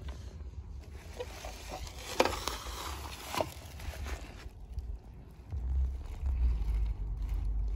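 Rustling and a few sharp knocks from handling a streetlight lantern and its packaging while unboxing it, over a steady low rumble that grows louder near the end.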